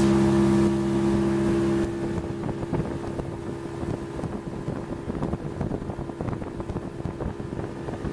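Motorboat engine running under way, with water rushing along the hull and wind on the microphone. About two seconds in the lower part of the engine hum drops away and the sound gets quieter, leaving a steady higher engine tone under the wind and water noise.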